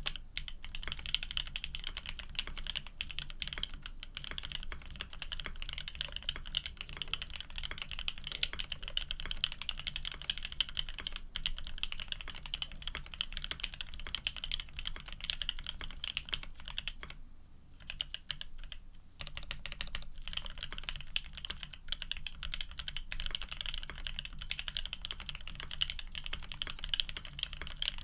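Continuous typing on an F1-8K custom mechanical keyboard with OP-Black switches lubed with Krytox 105, PBT keycaps and an FR4 plate, a dense run of key clacks. The typing stops briefly about two-thirds of the way through, then resumes.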